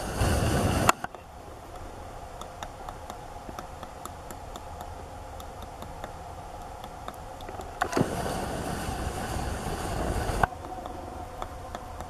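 Pileated woodpecker chiselling into a tree trunk: scattered, irregular knocks of its bill on the wood. Two loud stretches of rushing noise cut in and out abruptly, one very brief at the start and one from about eight seconds in to ten and a half.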